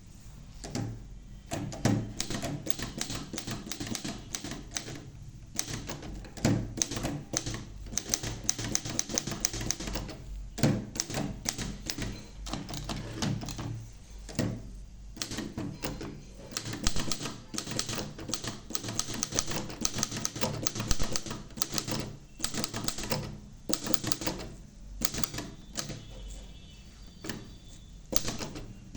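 Erika typewriter made by Robotron being typed on: rapid, irregular keystroke clacks in runs, with a few brief pauses between them.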